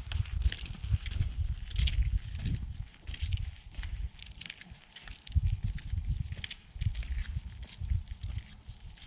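Footsteps crunching and postholing through deep snow under an ice crust, at a steady walking pace of about one to two steps a second, each step a soft thud with a crisp crunch.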